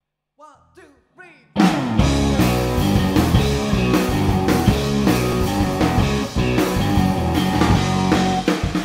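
Blues-rock power trio of electric guitar, bass and drums playing: a few faint sliding notes, then the full band comes in loud about a second and a half in.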